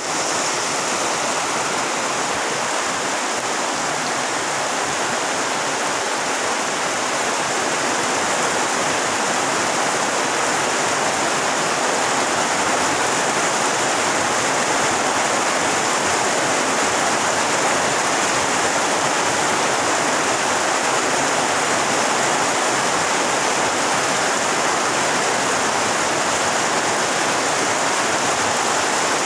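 Heavy rain falling on a pond's surface: a steady, dense hiss.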